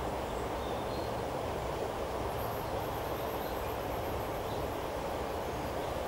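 Steady rushing of flowing stream water, an even noise that does not change in level. From about two seconds in, a faint, very high, rapid chirping runs above it.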